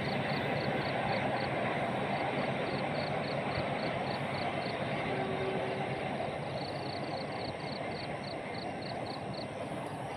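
Argo Parahyangan express train rushing past at speed, a steady whooshing roar like a jet aircraft that slowly fades as it draws away. A high chirp repeats steadily about three times a second throughout.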